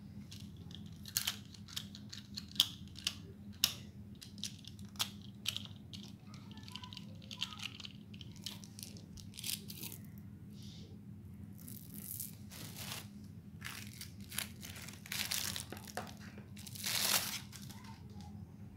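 Hands unpacking sweets. First a run of sharp plastic clicks and small rattles as a toy candy dispenser is opened and coated chocolate candies are tipped out. Then, near the end, a few longer bursts of a plastic candy wrapper crinkling and tearing.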